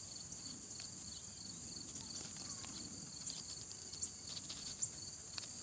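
Crickets chirring steadily in high-pitched bands, one of them a fast pulsing chirp, with a couple of soft clicks near the end.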